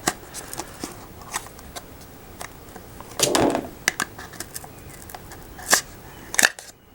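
Empty cardboard box being handled and checked: scattered taps and rustles of cardboard, a longer rustle about three seconds in, and a couple of sharp clicks near the end.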